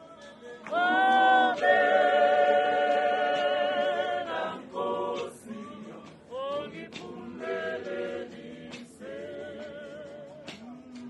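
A church congregation choir of many voices singing a hymn together. A loud long-held passage begins about a second in and lasts around three seconds, followed by shorter sung phrases.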